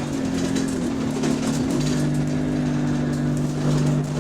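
Running noise of the GAL SE101 bus heard from on board: a steady droning hum that dips in pitch about half a second in, climbs back near two seconds and then holds steady, with light rattling above it.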